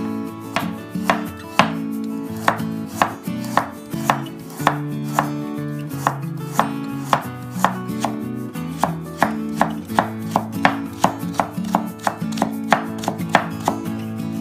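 Kitchen knife chopping against a cutting board in steady strokes about two a second, slicing a thin omelette into strips and then julienning a carrot on a wooden board.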